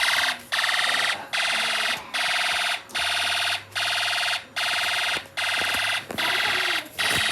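Homemade fire alarm sounding through a speaker: a loud, buzzy electronic tone pulsing on and off, about five pulses every four seconds.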